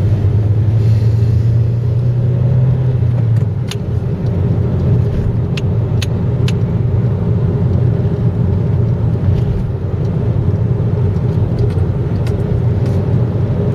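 Car driving along an asphalt road, heard from inside the cabin: steady engine and tyre rumble, with a few faint clicks around the middle.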